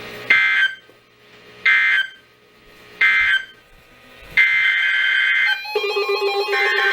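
Three short electronic data bursts of the weather radio alert code, about a second and a half apart: the end-of-message signal after a warning. A longer burst follows, and near the end a steady electronic alert tone starts.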